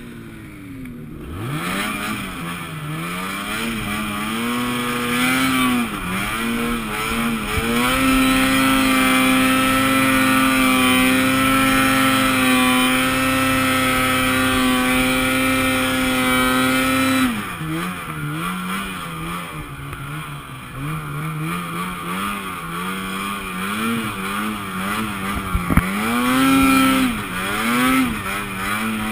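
Ski-Doo E-TEC two-stroke snowmobile engine revving under load in deep snow, the pitch rising and falling with the throttle. About 8 seconds in it holds at steady high revs for some nine seconds, then drops back and goes on revving up and down.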